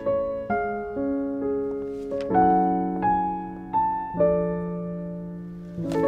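Background piano music: a slow melody over chords, a new note or chord struck about once a second and left to fade.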